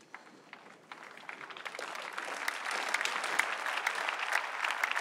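A large congregation applauding: scattered claps that swell into dense, steady applause over the first two or three seconds.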